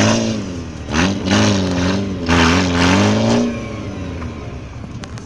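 Off-road vehicle engine revved hard in three surges, its pitch climbing and falling as the vehicle struggles through a stream crossing with its wheels spinning, then dropping back to a lower running note about three and a half seconds in.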